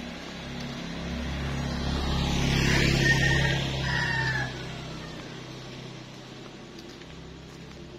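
A motorbike passing close by on the road, its engine growing louder to about three seconds in and then fading away. Near the loudest point there is a short, falling high tone.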